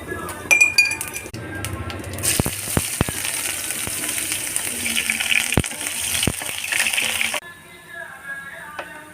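A few ringing clinks of a utensil against cookware, then several seconds of food sizzling in a hot pan with a few sharp knocks, cut off abruptly. Background music plays underneath.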